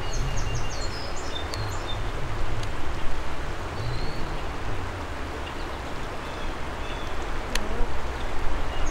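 Steady rush of flowing creek water and wind buffeting the microphone, with songbirds chirping in short high notes several times over it and one faint tick near the end.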